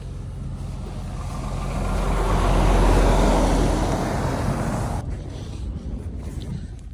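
A road vehicle passing close by, its noise swelling to a peak about three seconds in, then dropping off sharply about two seconds later, over a low steady hum.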